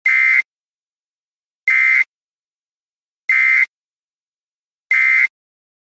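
A weather-warning web page's audio alert tone: four identical buzzy electronic beeps, each under half a second, repeating about every 1.6 seconds.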